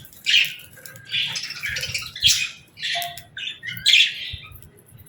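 Several budgerigars chirping and chattering: short, high, irregular calls that come every half second or so and sometimes overlap.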